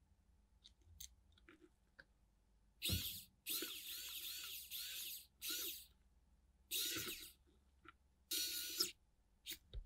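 Pen-style electric precision screwdriver running in short bursts on the small screws of a GoPro Hero 3+ circuit board, the longest burst nearly two seconds, its motor whine rising and falling. Light clicks of handling come first.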